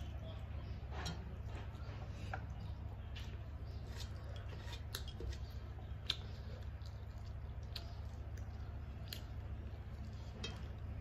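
Rice and curry being mixed by hand on a steel plate: soft wet squishing and scattered light clicks against the metal, with one sharper click about six seconds in, over a steady low hum.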